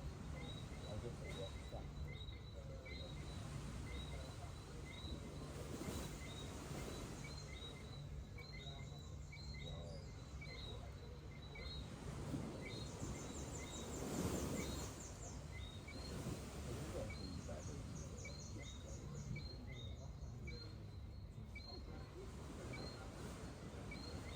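Dusk ambience at a tropical bay: a steady low wash of gentle surf under a dense chorus of short, repeated high chirps, with occasional buzzy trills from insects. A louder wave washes in about halfway through.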